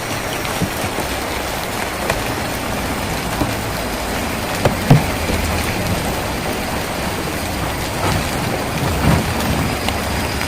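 Steady rain drumming on a tin roof, with a few louder single drops knocking on the metal about halfway through and again near the end.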